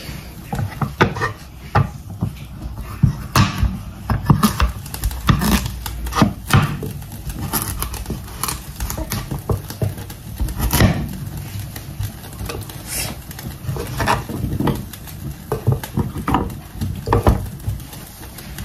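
Meat cleaver chopping carrots on a cutting board: a run of irregular knocks as the blade strikes through the carrot onto the board.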